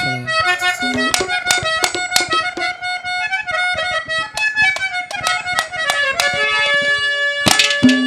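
Harmonium playing a held, reedy melody over regular drum strokes: the instrumental lead-in of a Haryanvi ragni.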